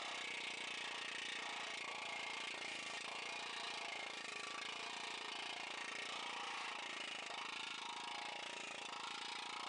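Planishing hammer running steadily, its dies rapidly hammering a sheet-metal motorcycle fender panel to smooth the transition in the shape.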